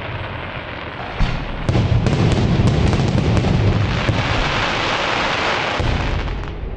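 Aerial fireworks going off: a rapid run of bangs and crackling pops over a deep rumble, starting hard about a second in, densest and loudest through the middle, then easing off near the end.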